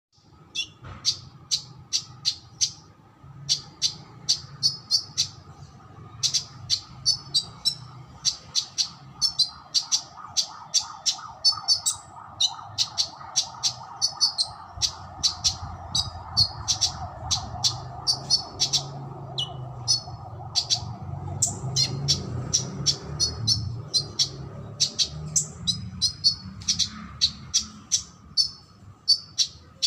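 A songbird singing in quick, sharp, high-pitched chirps and short trills, several a second, with little pause, over a low steady background hum.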